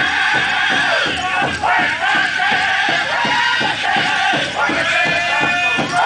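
Powwow drum group singing a Grand Entry song: several singers strike a large powwow drum in a steady, even beat, while high-pitched voices sing together over it.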